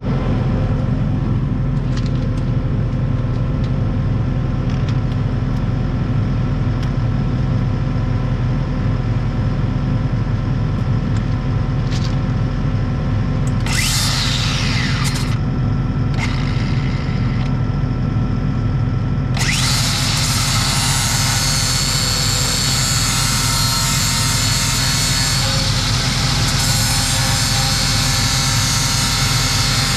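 Grinder on steel rotary-cutter blades, sharpening their edges. It runs briefly twice around the middle, then grinds continuously from about two-thirds of the way in, over a steady engine hum.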